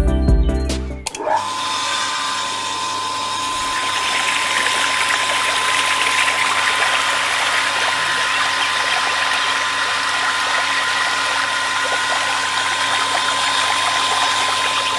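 A small electric motor driving a miniature water pump spins up with a quick rising whine, then runs at a steady high whine. A stream of water splashes into a small plastic tank, and the splashing grows louder about four seconds in.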